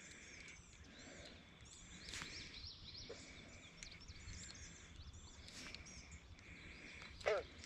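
Faint outdoor ambience of several birds chirping and singing around a pond, over a low rumble of wind. A louder call that drops in pitch comes near the end.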